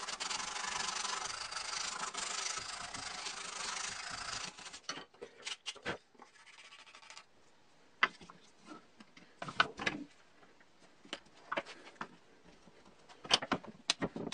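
Sanding the inside of the centre hole of a wooden lock rotor, a steady rasping rub for about five seconds, enlarging the hole so the rotor turns freely on its dowel. After that come scattered light wooden clicks and knocks.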